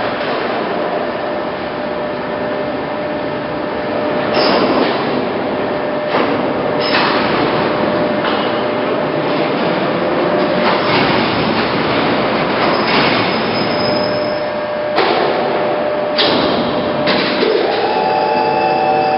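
POREBA TCG 125 heavy-duty lathe running slowly under power: a steady mechanical running noise with a held tone through it, and several sudden, brief surges of louder noise every few seconds.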